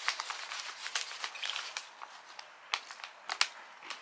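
White paper bag crinkling and rustling in irregular sharp crackles as a hand reaches in for mini beignets.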